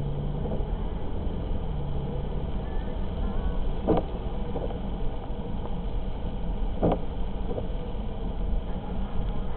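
Steady low road and engine noise inside a car driving on a wet road. The windshield wipers sweep across the rain-wet glass about every three seconds, each pass a short swish.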